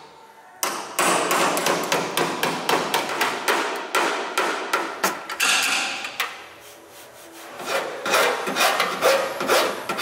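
Body hammer tapping out the dented sheet-metal rear quarter panel of a Toyota AE86, in quick, even strikes about four a second. The taps stop about halfway through and start again near the end.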